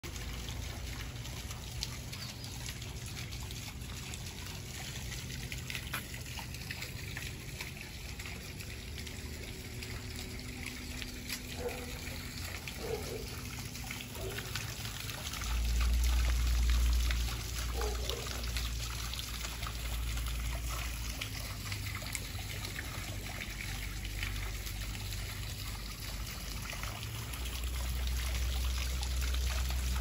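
Stone-column garden fountain running: water trickling and splashing down dark stone columns into a shallow pool, a steady patter throughout. A low rumble swells about halfway through and again near the end.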